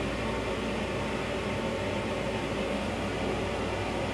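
Steady hum and hiss inside the restroom of a Long Island Rail Road M9 railcar: the car's ventilation and running noise, unchanging throughout.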